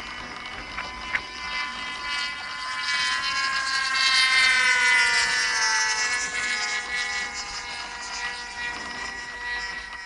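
Radio-controlled model airplane engine buzzing as the plane flies past, growing loud about four seconds in while its pitch drops, then fading to a steady lower drone.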